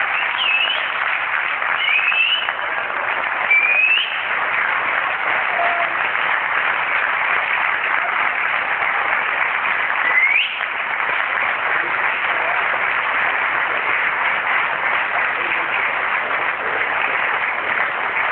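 Concert audience applauding steadily, with a few short rising whistles over the clapping in the first half, the last one about ten seconds in.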